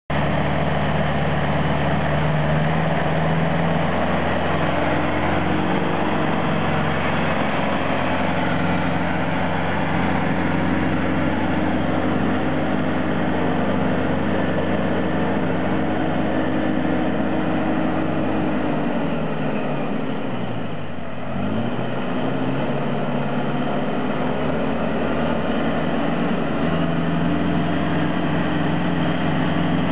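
New Holland Boomer 3050 tractor's diesel engine running steadily as the tractor drives. About twenty seconds in, the engine note drops sharply and climbs back up again.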